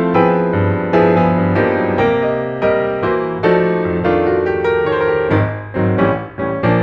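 Background piano music: chords and melody notes struck every half second or so, each ringing and fading before the next.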